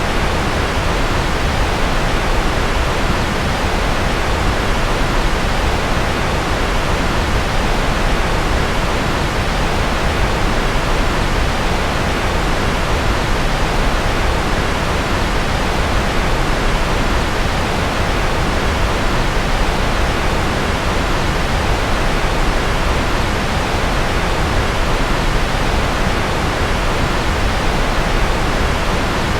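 Steady white-noise track: an even, unbroken rushing hiss with no change in level or pitch.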